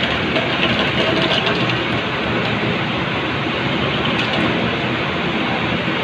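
Ice cubes pouring from a refrigerator's ice dispenser and clattering into a stainless-steel tray in a steady, continuous rattle, the dispenser being tested.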